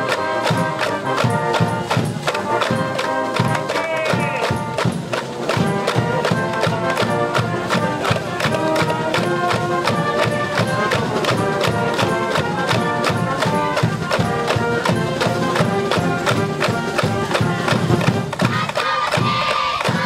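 A school brass band playing a baseball cheer tune over a steady drum beat.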